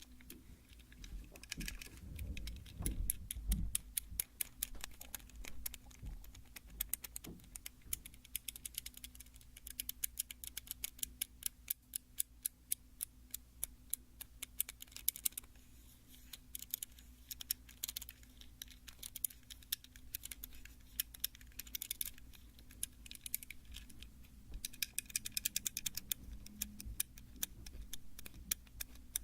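Light tapping and clicking on a toy car, in quick runs of many small clicks a second, with a few soft handling thumps near the start.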